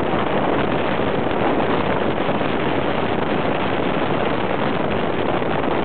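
Steady wind rushing over the microphone, mixed with tyre and road noise from a car driving at speed.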